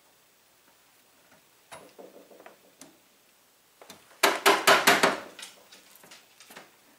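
Rusty metal strap being pulled by hand away from a wooden pinball cabinet edge where it is nailed on. A few faint clicks, then about four seconds in a quick run of six or seven sharp clicks and rattles, then a few fainter ones.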